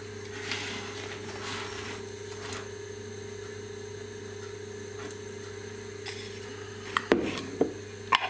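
Steady low hum with some faint rubbing and scraping, then a few sharp knocks and clinks near the end as a glass jar is handled close by.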